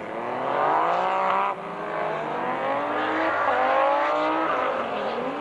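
Four-wheel-drive rallycross cars accelerating hard. Engine pitch climbs, drops sharply at a gear change about a second and a half in, then climbs again.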